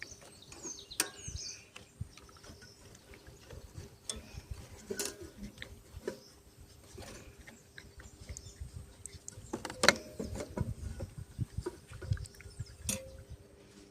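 Scattered sharp clicks and knocks of hand tools on a lawnmower engine during carburetor removal, the loudest about ten seconds in, with birds chirping faintly near the start.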